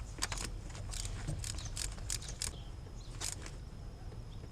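Faint, irregular clicking of a ratchet wrench as a spark plug is tightened into the engine's cylinder head.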